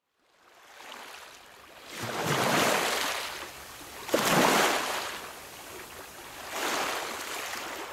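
Small waves breaking and washing onto a pebble shore. The sound fades in at the start and then rises and falls in three larger surges about two seconds apart, the middle one breaking most sharply.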